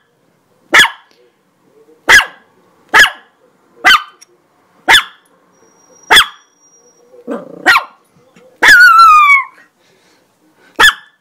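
Chihuahua barking: about eight sharp, high barks at roughly one a second, with a short low growl after the seventh second and one longer, drawn-out bark falling in pitch near the end.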